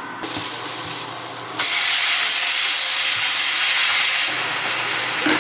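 Leafy greens sizzling in hot oil in a pan as they are stir-fried: a steady hiss that starts just after the beginning, gets louder about a second and a half in, and eases a little near the end.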